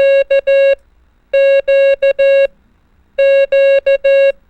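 Morse code tone keying the letter Q, dah-dah-di-dah, three times in a row: a steady electronic beep switched on and off in long, long, short, long.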